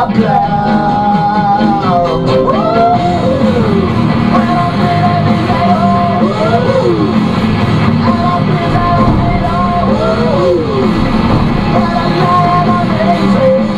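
Rock song playing on the car radio, a singer over guitar and band.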